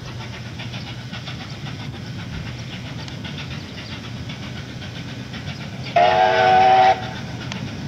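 NSWGR C38-class 4-6-2 Pacific steam locomotive 3801 running with an express passenger train, a steady rumble with a faint regular beat. About six seconds in, its steam whistle sounds once, a loud chord-like blast about a second long.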